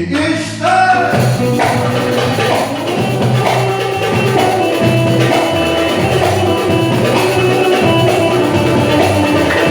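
A Turkish-language song playing: a last sung note slides and holds in the first second, then an instrumental passage with a steady beat continues.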